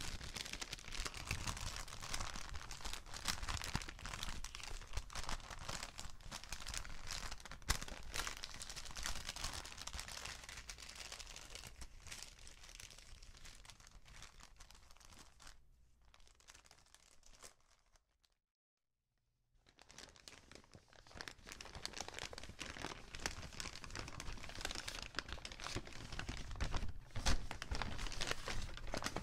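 Paper bags being crinkled and crumpled by hand: a dense, rustling crackle. It tapers off toward the middle, stops dead for a second or so, then starts again, louder near the end.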